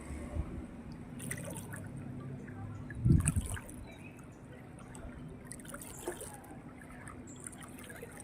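Water trickling and dripping, with scattered small splashes and a dull low thump about three seconds in.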